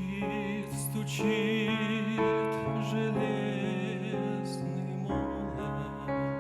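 Slow, gentle instrumental music: sustained keyboard chords that change about every two seconds, with a wavering melody line above them.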